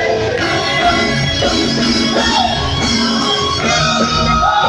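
Live gospel praise music: women singing into microphones over an amplified band with drums and keyboard.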